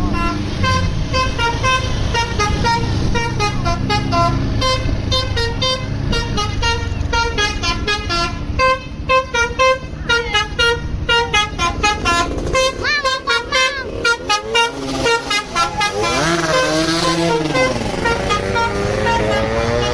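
A bus's Basuri telolet multi-tone horn plays a quick melody of short, loud notes. In the second half it switches to wavering, siren-like tones that swoop up and down. The bus's engine runs underneath.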